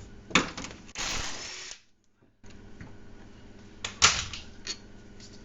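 A tool working a suspension bolt: a short burst of rapid rattling clatter about a second in, with sharp metallic clicks just before it and again near the end.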